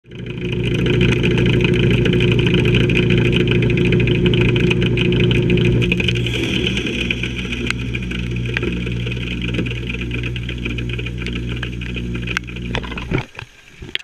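Carrier Comfort heat pump outdoor unit running in its defrost cycle, a steady electric hum with a hiss above it as the iced coil steams. The sound drops away sharply near the end.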